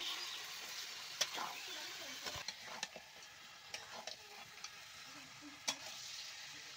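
Duck pieces frying and sizzling in a metal pan while a metal spatula stirs them, clicking and scraping against the pan now and then.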